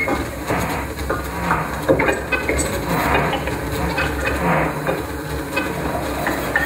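Free-improvised live music made of irregular clattering, scraping and knocking sounds, with short pitched tones scattered through it.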